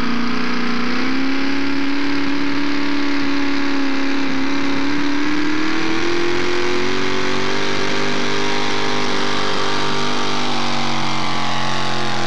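Modified four-wheel-drive pulling truck's engine running hard under load while it drags a weighted sled down the track. It is a loud, steady drone whose pitch climbs slowly over the pull and begins to fall near the end.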